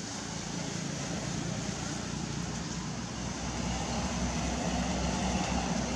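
Distant road traffic: a steady hum with a low rumble that grows louder about halfway through.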